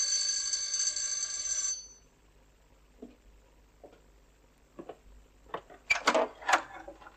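Electric doorbell ringing for about two seconds, then a few faint clicks and knocks.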